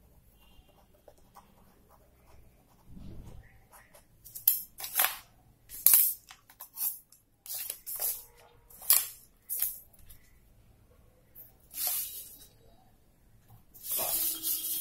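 A series of short scratchy scrapes as plastic set squares are slid and shifted across drawing paper, clustered in the middle of the stretch with a couple more near the end.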